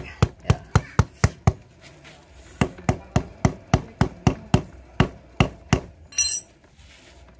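A metal bar beating the tread of a motorcycle's tubeless tyre, about three or four blows a second, in two runs with a pause about two seconds in; the beating spreads freshly added sealant evenly inside the tyre. A short ringing metallic clink comes near the end.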